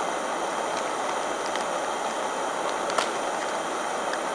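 Portable gas camping stove burning steadily under a pot of water being heated to the boil: an even hiss, with a few light clicks, one about three seconds in.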